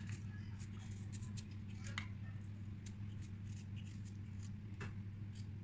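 Knife paring the skin off a ginger root: irregular short scrapes and clicks as the blade catches and cuts the peel, over a steady low hum.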